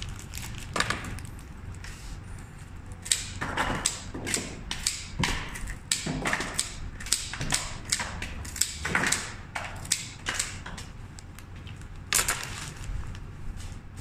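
Sheets of white wrapping paper rustling and crinkling as they are handled and folded around a bouquet, in an irregular run of crackles that thickens after a few seconds and eases near the end.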